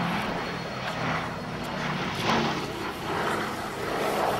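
Boeing B-17 Flying Fortress flying past, its four Wright Cyclone nine-cylinder radial piston engines running with a low steady drone that swells and fades slightly.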